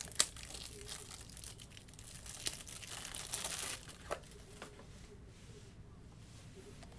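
Packaging wrapper crinkling and tearing as trading-card packs and supplies are handled and opened, with a sharp click just after the start and another about four seconds in.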